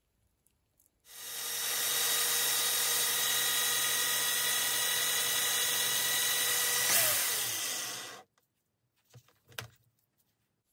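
Electric drill clamped in a bench vise, spinning a rusty bicycle wheel axle held in its chuck. It runs at a steady speed for about seven seconds and then stops abruptly, followed by a few light knocks as the axle is handled.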